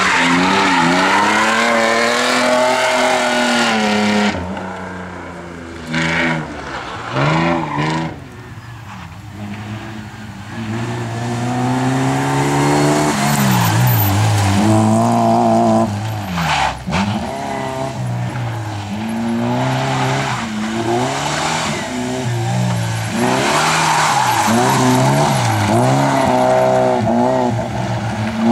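Rally car engine revving hard through the gears, its pitch climbing and dropping again and again with each shift and lift. It eases off and fades somewhat for several seconds before building back up to full revs.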